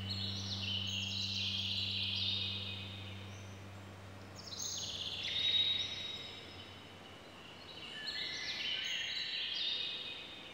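Three phrases of high, quick bird-like chirping that steps up and down in pitch, over a low steady hum that fades away about halfway through.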